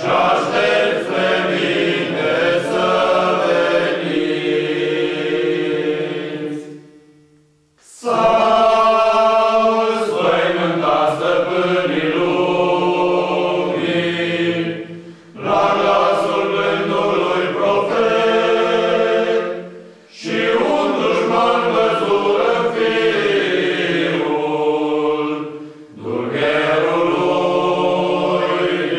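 Men's choir singing a cappella in harmony, in long held phrases separated by brief breaths. There is a near-silent pause about seven seconds in.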